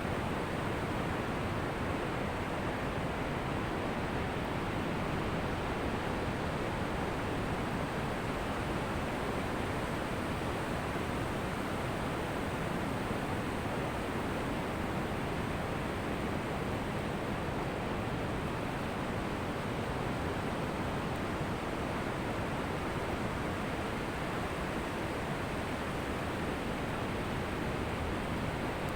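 Ocean surf washing on a beach, a steady, even rush of water with no single breaker standing out.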